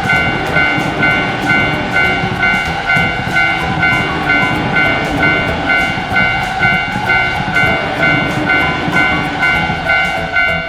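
Japanese railway level crossing alarm ringing its repeating two-tone 'kan-kan' about twice a second, with a train rumbling past underneath.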